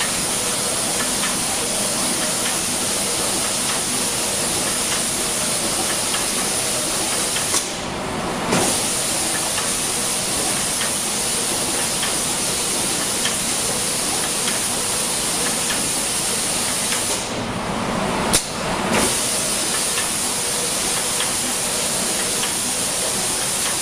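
Steady hiss of compressed-air spray guns atomising paint on an automatic spray-painting machine. The hiss drops off briefly twice, about eight seconds in and again around eighteen seconds.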